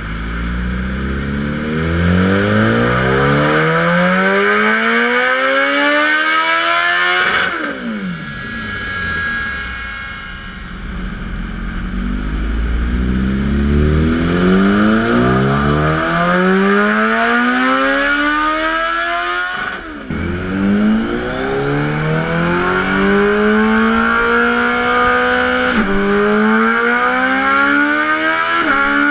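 Kawasaki ZX14R's 1441 cc inline-four at full throttle: two long pulls rising steadily through the revs, each dropping off sharply as the throttle shuts, with a quieter stretch between them. Then another hard acceleration with two quick upshifts near the end.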